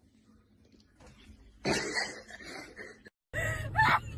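A rough, noisy sound lasting about a second and a half, then a sudden cut to a steady low engine hum inside a car cabin, over which a gull gives a loud rising squawk near the end.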